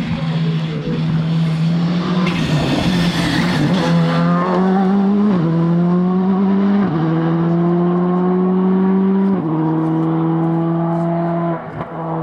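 Rally car engine accelerating hard, its note climbing and dropping sharply at several quick upshifts, with a rush of tyre and gravel noise early on; the sound falls away near the end as the car leaves.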